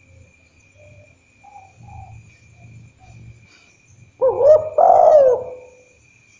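Spotted dove cooing: one loud two-part coo about four seconds in, its pitch gliding and the last note held, after a few faint soft notes.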